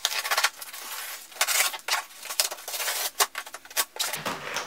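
Packing tape being peeled off a cardboard box in a run of short rips and rasps, with cardboard scraping between them.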